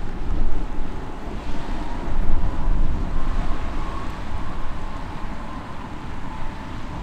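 Strong wind buffeting the microphone, with the engines of a Boeing 787-9 on final approach heard under it as a faint steady whine that swells a little around the middle.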